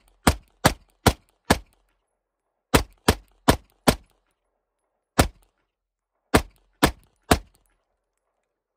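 PSA Dagger Compact 9mm pistol firing twelve shots in quick strings: four, then four, then a single shot, then three. The gun is cycling reliably on a newly replaced firing pin after the old one broke.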